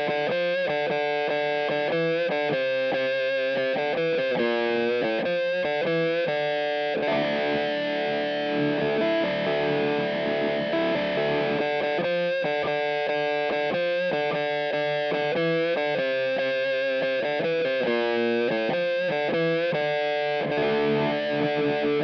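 Distorted electric guitar playing a choppy riff through a Jam Pedals Seagull fixed ('cocked') wah filter in its middle sweep position, giving a honky, nasal wah tone. The riff gives way to a longer sustained passage about seven seconds in and resumes about five seconds later.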